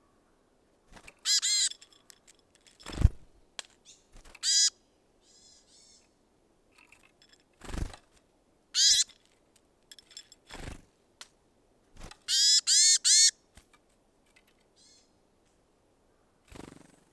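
Small songbirds giving harsh, nasal buzzy calls: single notes and short runs of two or three, the longest run about twelve seconds in. Several sharp knocks fall between the calls.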